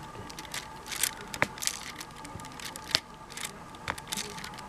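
Diamond painting drill pen with a wax-loaded tip picking up resin drills and pressing them onto the canvas one at a time: about five small sharp clicks at irregular spacing, the 'satisfying click' of each drill being set.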